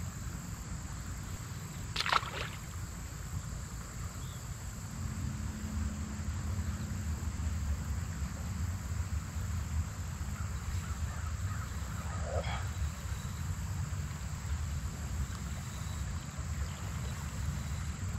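Outdoor river ambience: a steady low rumble with a faint hiss above it, a single sharp knock about two seconds in, and a brief higher-pitched sound about twelve seconds in.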